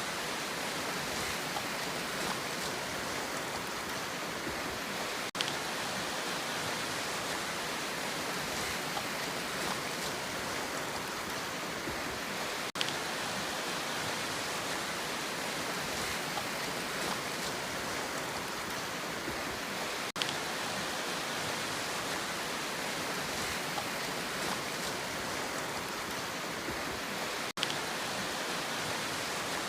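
Sea sound: a steady, even wash of surf noise with no distinct wave breaks, interrupted by a brief dropout about every seven seconds.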